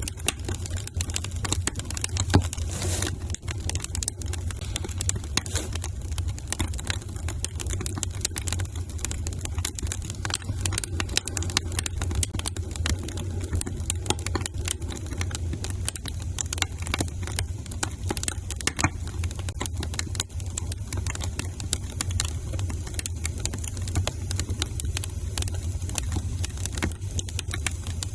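Wood fire crackling in a fireplace: dense, irregular snaps and pops over a steady low rumble.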